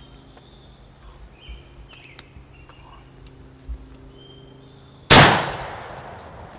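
Muzzleloader fired once: a single loud blast about five seconds in, its echo trailing off over about a second. Small birds chirp faintly before the shot.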